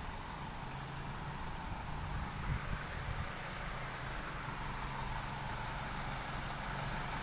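A truck engine idling steadily: a low even hum over a haze of noise, a little louder about two and a half seconds in.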